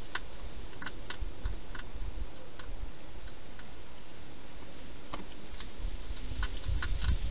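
Wild hedgehog eating from a bowl inside a plastic feeding box, its chewing heard as scattered, irregular crisp clicks over a steady hiss. A low rumble builds near the end.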